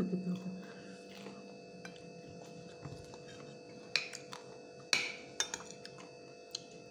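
A few sharp clinks of fingers and food against a ceramic plate during hand-eating, about four seconds in and again around five and six and a half seconds. A steady faint hum underlies them.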